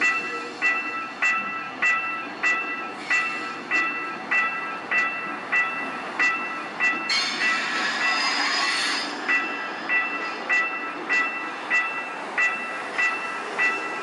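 Recorded railway level-crossing bell played back by a push-button sound installation, dinging evenly about three times every two seconds. About seven seconds in, a rush of noise lasting about two seconds covers the bell.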